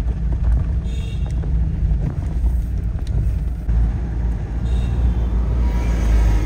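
Road traffic heard from among the vehicles: a loud, steady low rumble of engines and road noise, with two brief high-pitched sounds, about a second in and just before five seconds.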